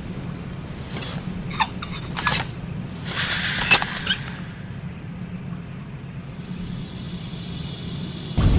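A pause between flamethrower blasts: a steady low hum with a few sharp clicks and a short hiss in the first half. Near the end the flamethrower's flame roar starts again suddenly.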